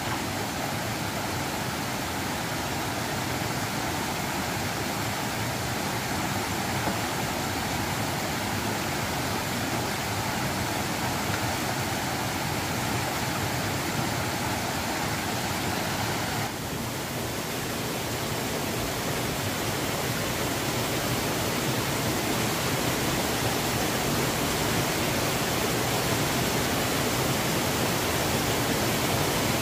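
Steady rushing noise, even across the range, of the kind flowing water makes. Its tone shifts slightly about sixteen seconds in.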